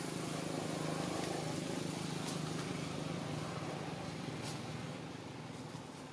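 A motor engine running with a steady low hum, loudest about a second in and fading toward the end.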